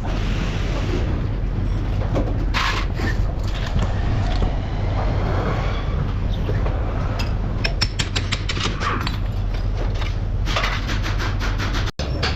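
Metal tools knocking and clicking over a steady low hum from the workshop during a front wheel bearing job. A quick run of sharp clicks and knocks comes about two thirds of the way in, and a few more strikes follow near the end.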